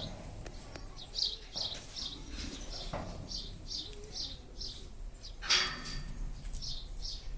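Small birds chirping over and over, about two or three short high chirps a second, with one short, loud burst of noise about five and a half seconds in.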